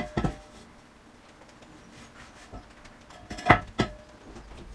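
Steel flue pipe being dropped through the roof collar onto the reducing ring of a Morso Squirrel stove: a light knock just after the start, then two sharp metal-on-metal clanks with a short ring about three and a half seconds in.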